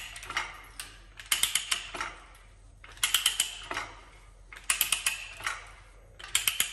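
Ratchet stock and die cutting threads into 1/2 inch low carbon steel pipe: the pawl clicks in short rapid bursts about every second and a half as the handle is worked back and forth, with quieter stretches between.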